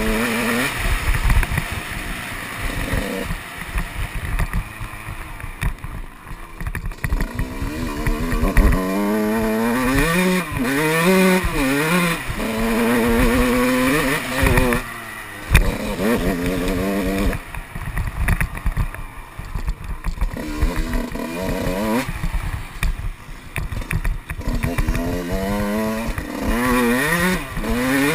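Motocross dirt bike engine revving hard and easing off again and again while riding the track, its pitch climbing and dropping through the gears, with wind buffeting on the helmet-mounted microphone.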